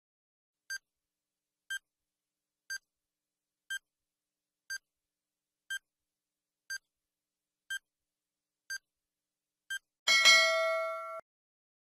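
Quiz countdown-timer sound effect: ten short beeps, one a second, then a louder time's-up signal with several held tones that cuts off after about a second.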